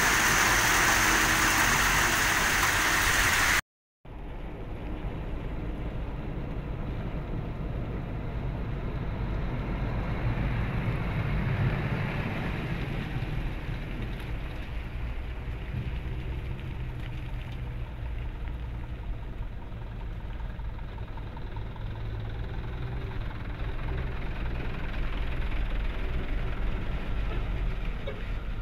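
Queued trucks' diesel engines idling, a steady low rumble. The first few seconds are a loud even hiss that cuts off suddenly.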